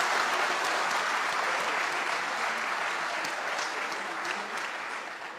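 An audience applauding, dense clapping that slowly dies away and fades out near the end.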